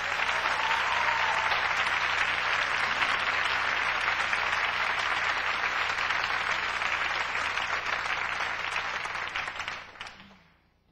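Studio audience applauding steadily, the applause dying away about ten seconds in.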